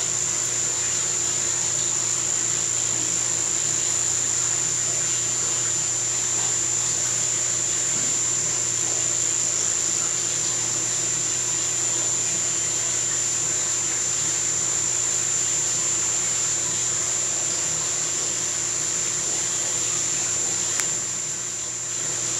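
Underwater treadmill running: a steady machine hum with a constant high-pitched whine over it, unchanging throughout.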